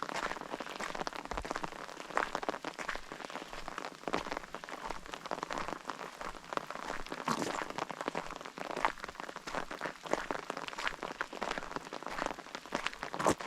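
Rain falling, with a dense, irregular patter of many drops striking close by over a steady hiss.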